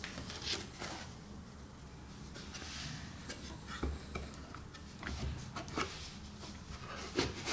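Gloved hands handling a Rolex watch box: a foam insert lifted out and the cardboard and green inner box rubbed and tapped, giving soft rustles and scattered light clicks and knocks.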